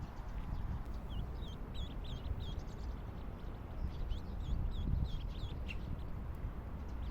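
High-pitched bird peeps in quick series, coming in two runs, over a low rumble.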